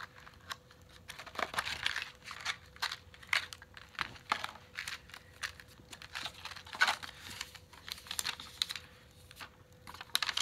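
Hands handling a small flashlight and its packaging: irregular crinkling and rustling of paper and cardboard with many scattered small clicks, over a faint steady hum.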